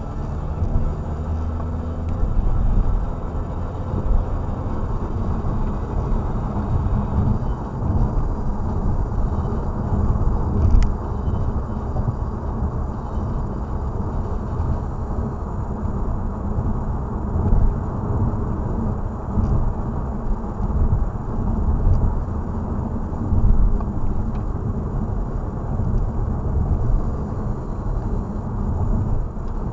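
Steady low rumble of a car's tyres and engine at about 70–85 km/h on a partly wet road, heard from inside the cabin. A single short tick comes about eleven seconds in.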